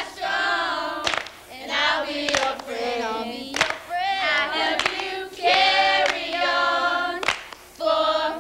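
A group of teenagers singing together in short phrases and clapping their hands along, with sharp handclaps between the phrases.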